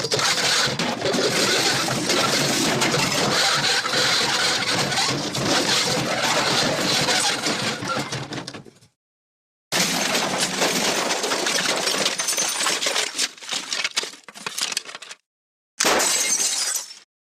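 The MGM 'Elephant Smash' sound effect: a long, dense crash of things breaking and clattering. It plays three times, first for about nine seconds, then about five, then a short snippet near the end, each one cut off into dead silence.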